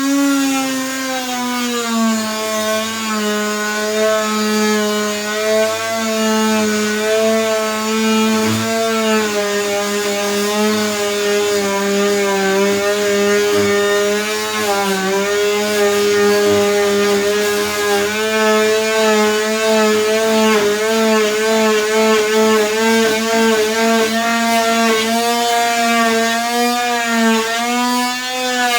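Dremel rotary tool cutting through a shed's exterior wall: a loud, steady motor whine whose pitch drops about two seconds in as the bit bites, wavers under load, and climbs again near the end.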